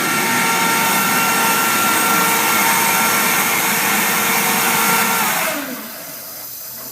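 Sullair LS100 40 hp rotary screw air compressor running loud with a steady whine. About five seconds in it shuts down: the whine winds down in pitch and drops away, leaving a steady hiss of air.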